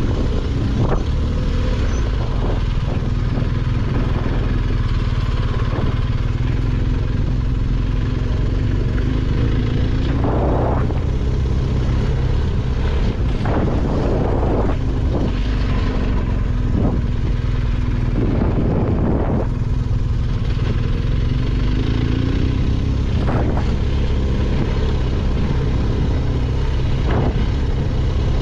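BMW R1250GS boxer-twin motorcycle engine running while riding, under a steady heavy low rumble. A handful of short, sharp noises come through in the middle stretch.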